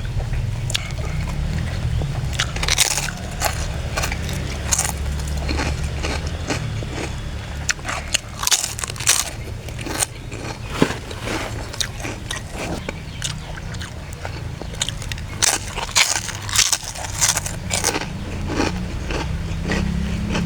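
Close-up crunching and chewing of crisp fried kerupuk crackers, with irregular sharp crackles through the whole stretch, over a steady low hum.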